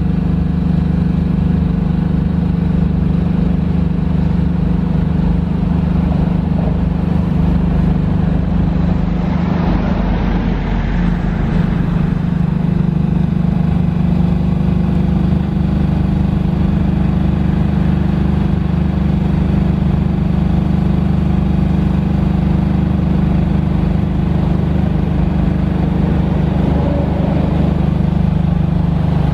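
The light tower's Kohler diesel engine and 4 kVA generator running at a steady speed, powering the four lit metal halide lamps.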